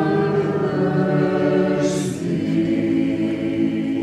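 Small mixed choir singing Orthodox liturgical chant a cappella: long held chords in several voices, moving to a new chord about two seconds in.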